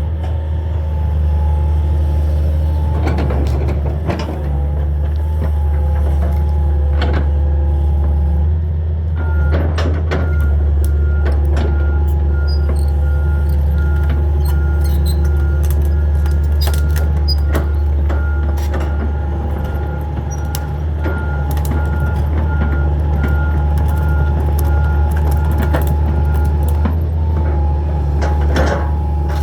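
Hitachi 225 excavator's diesel engine running steadily under load, with the whine of its hydraulics, and scattered sharp knocks and clatters as it works. From about nine seconds in until near the end, a run of short high beeps repeats at an even pace.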